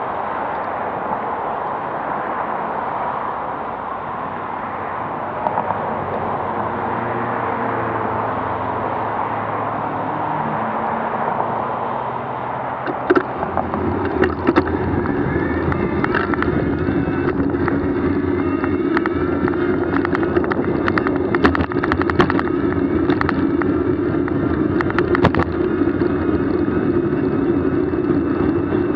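Steady rushing road and wind noise of travel. About halfway through, a steady droning hum joins it, with scattered clicks and knocks.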